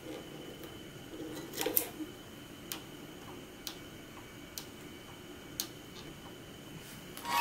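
Classical guitar tuning machine being turned by hand to wind on a new nylon string: a soft rubbing in the first couple of seconds, then light clicks about once a second.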